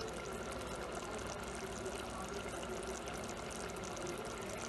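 Egg curry simmering in a pot, bubbling steadily with many small bubbles popping.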